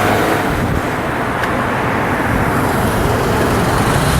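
Steady rush of heavy road traffic going by: tyre and engine noise from many cars.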